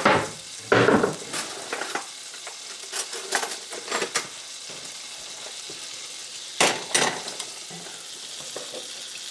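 Butter sizzling steadily in a hot cast iron frying pan as it heats toward smoking, with knocks and clanks of kitchenware: two loud ones at the start, a few lighter ones in the middle and another loud pair about two-thirds of the way through.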